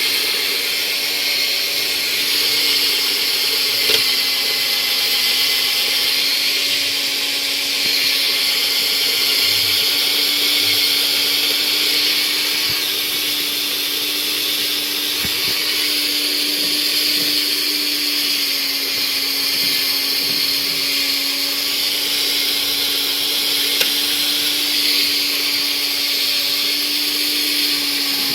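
Homemade lathe running steadily: its motor and gear train make a continuous whine over a high, hissing band, with the pitch shifting slightly a few times.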